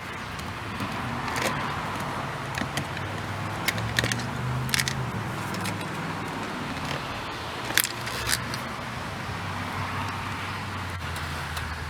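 Scattered small metallic clicks and clinks as a T20 Torx screw is worked out of a car door handle with a Torx bit, over a steady low engine-like hum.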